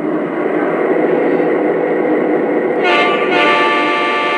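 A Lionel GP20 model diesel locomotive's onboard sound system playing its diesel engine running sound after start-up. About three seconds in, the locomotive's horn sounds and holds.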